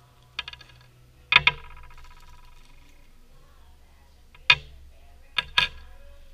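Small metal fuze parts of a replica M18 smoke grenade, among them the safety lever and pull ring, being set down on a hard tabletop. They make a handful of sharp metallic clinks, the loudest a little over a second in and a pair near the end, each ringing briefly.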